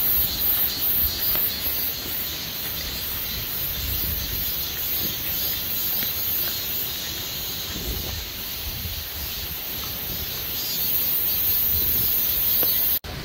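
Steady outdoor hiss with wind rumbling unevenly on the microphone; the sound cuts off suddenly near the end.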